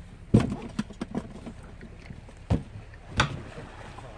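A handful of sharp knocks and taps, the loudest about a third of a second in and others near the end, over a steady low rumble.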